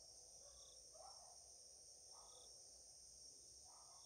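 Near silence: room tone with a faint steady high-pitched hiss.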